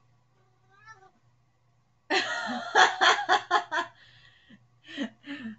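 A woman laughing in a quick run of breathy bursts starting about two seconds in, with a shorter burst of laughter near the end.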